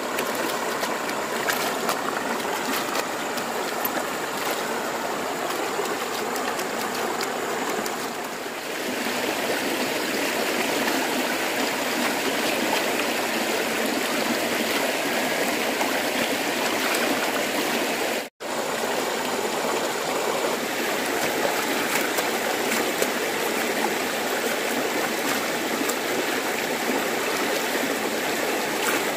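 Shallow, rocky stream running steadily, with light splashing as clothes are washed and rinsed by hand in the water.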